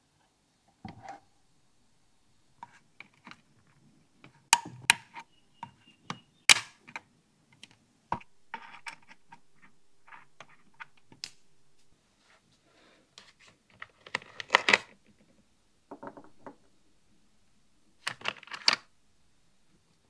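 Irregular sharp clicks and taps of pliers and small metal hardware on amplifier chassis wiring, ground lugs and nuts. Several quick clusters of ticks come about three quarters of the way through and again near the end.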